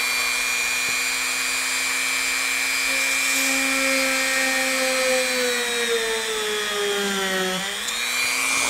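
Handheld rotary tool running with a 1/16-inch drill bit, drilling a pilot hole through a servo mounting hole into wood, a steady high whine. From about three seconds in its pitch sinks slowly as the bit, which is called dull, loads up in the hole, then springs back up near the end as the load comes off.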